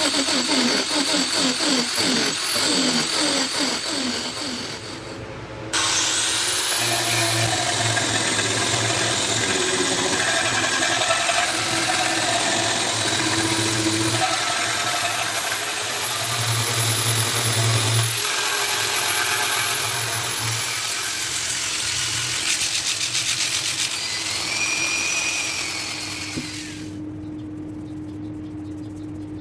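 Power tools working wood, most likely a wood lathe running while a tool cuts the spinning workpiece, with a high whine over a loud rushing noise. The sound changes abruptly twice. Near the end it drops to a quieter steady hum.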